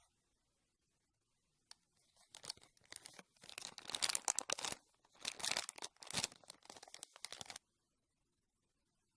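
Slime being squeezed and worked by hand, crackling and crinkling in quick bursts that grow denser, then stop suddenly.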